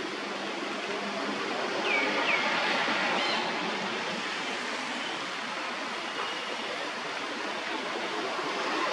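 Steady rushing outdoor background noise, with two short falling chirps about two seconds in.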